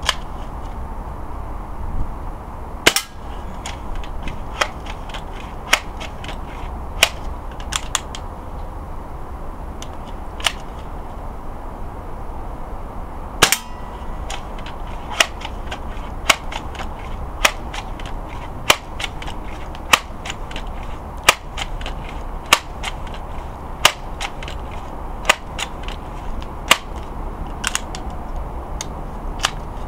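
Crosman M417 multi-pump .177 air rifle being shot: a string of sharp clicks and cracks roughly every second or so, with two louder cracks about three and thirteen seconds in.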